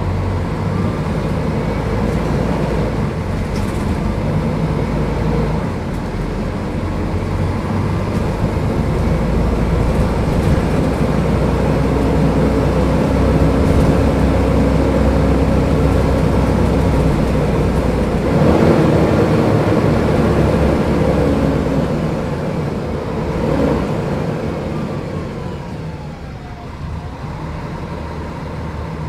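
Diesel engine of a Mercedes-Benz O500UDA bus running under way, heard with road noise. The engine note changes about two-thirds of the way through and gets quieter near the end.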